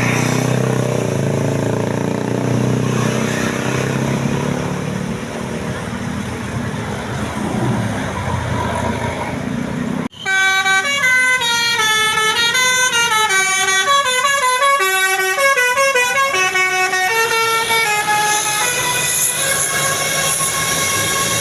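A vehicle running with road noise, then, after a sudden cut about ten seconds in, a Basuri telolet bus horn plays a long melody of several horn tones stepping up and down together.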